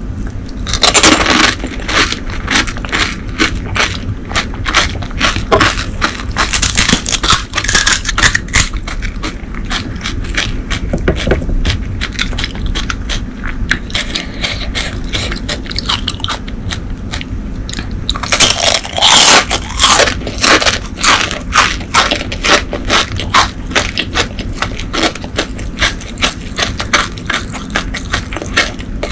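Close-miked eating sounds: crisp fried pani puri shells crunching and crackling as they are bitten, chewed and cracked open by hand. There are three louder bouts of crunching: about a second in, around seven seconds, and around nineteen seconds.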